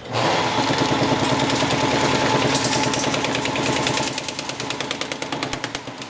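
Vintage wiring-harness taping machine starting up and running, its tape head spinning non-adhesive tape around the harness as it is pulled through. A steady hum runs under a rapid, even clicking, and the sound eases off after about four seconds.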